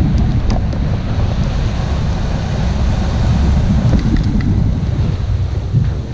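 Wind buffeting the microphone of a kayak-mounted action camera, a heavy rumble, over the wash and hiss of shallow breaking surf foaming around the hull.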